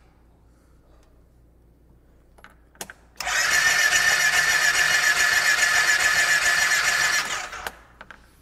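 Twin-cylinder ATV engine cranked over on its electric starter for about four seconds, a steady whirring with a high whine, while a spark plug is grounded on the head to check for spark. The engine does not fire because it is getting no spark.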